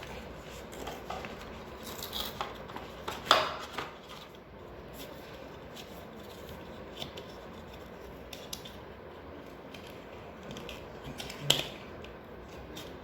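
Phone charger and cable being taken out of their box: scattered crinkling, rubbing and clicking of packaging, with a sharp click about three seconds in and another near the end.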